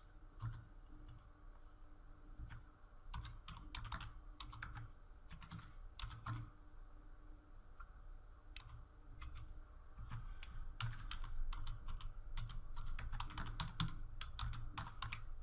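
Typing on a computer keyboard: irregular runs of keystrokes with short pauses between them, quickening in the last few seconds.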